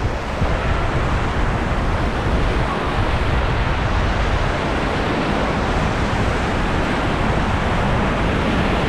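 Rushing whitewater of a river rapid around a raft, a loud steady rush of water.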